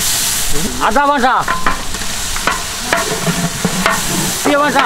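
Garlic-paste curry base frying and sizzling in oil in a large aluminium pot, stirred with a long metal ladle that scrapes and knocks against the pot. Two short wavering pitched calls come through, one about a second in and one near the end.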